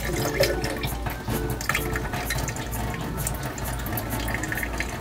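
Water trickling and splashing at a sink, with many small irregular ticks and drips over a steady low hum.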